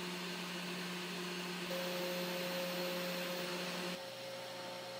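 Milling motor (spindle) of a 3018 Pro Max desktop CNC spinning freely with no load at about 10,700 rpm: a steady hum with a hiss. About four seconds in the sound changes and turns slightly quieter as the spindle turns a 30-degree V-bit cutting into beech wood.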